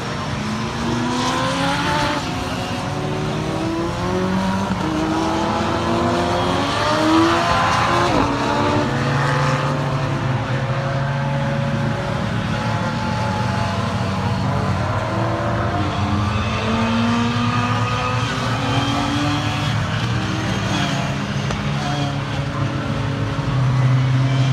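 A pack of race car engines running hard as the cars stream through a corner and past, several engine notes overlapping and rising and falling in pitch. The sound swells about seven seconds in and again near the end.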